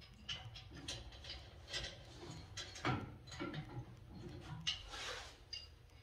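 Irregular light metal clicks and knocks of pipe wrenches and fittings being handled on boiler pipework, with a short hiss about five seconds in.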